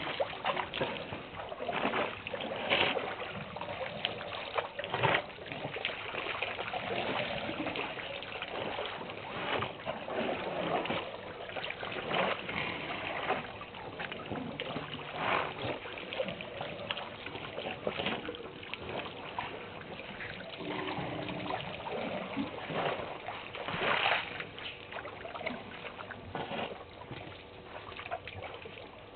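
African elephants drinking at a waterhole: irregular splashing and trickling of water as trunks dip into the water and spill it.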